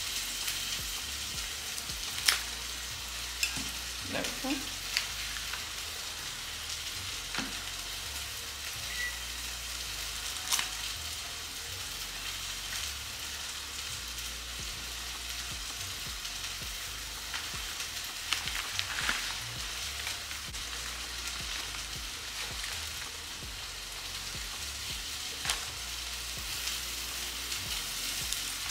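Scissors snipping through flower stems, a few sharp cuts spread out, over a steady sizzle-like hiss.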